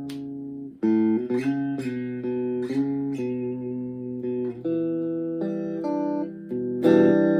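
Chapman ML1 Strat-style electric guitar played through a Blackstar HT-1R amp, picking a sequence of ringing chords. A chord fades out under a second in, the playing starts again, and a louder strummed chord comes in near the end.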